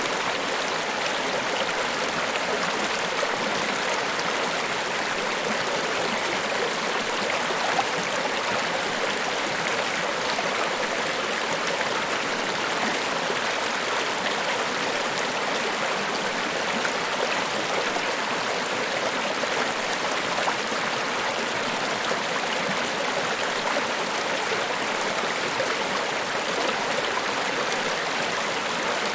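Rushing water of Niagara Falls, a steady, even hiss with little deep rumble.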